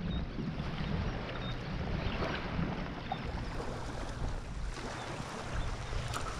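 Wind on the microphone with waves lapping and water splashing.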